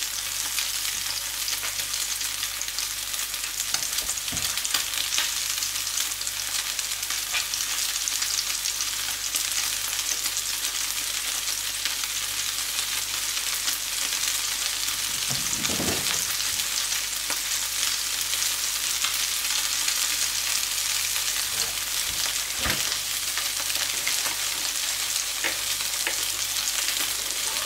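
Beef burger patty sizzling in hot oil in a frying pan: a steady frying hiss with a few louder crackles and pops.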